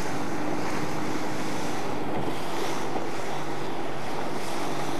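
Small boat under way: the outboard motor runs with a steady low hum under loud wind noise on the microphone and the wash of water past the hull.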